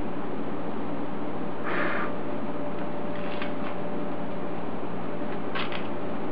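Three brief, soft rustles of a paper port template being handled and peeled off a cast rotary-engine rotor housing, over a steady hiss with a low hum.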